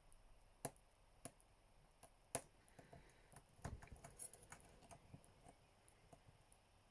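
Faint metal clicks and light scraping of a lock pick working the pins of a Yale Superior pin-tumbler cylinder: three separate sharp clicks, then a quick flurry of small clicks about three and a half seconds in.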